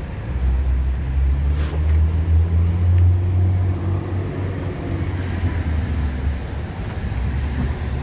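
Road traffic: car engines running and pulling past close by in slow traffic, a low engine drone that swells about two to three seconds in and eases off near the end.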